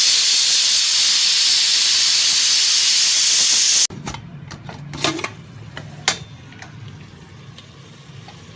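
Pressure cooker whistle venting steam in a loud, steady hiss that stops abruptly about four seconds in, a sign that the cooker has reached pressure. It is followed by a few light clinks and knocks over a faint low hum.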